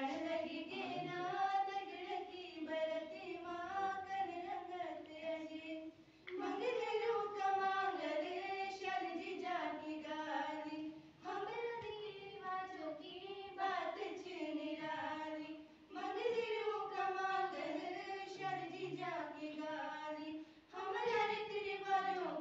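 Young girls' voices singing a Garhwali folk song together, the melody in long phrases with a short breath pause about every four to five seconds.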